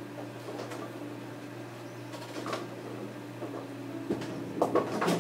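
Bowling alley ambience: a steady low hum under a general clatter, with a short burst of sharp knocks and clattering about four to five seconds in.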